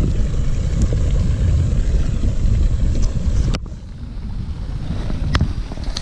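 Wind buffeting the camera microphone as a loud low rumble, which drops off suddenly after a sharp click about three and a half seconds in; another sharp click comes near the end.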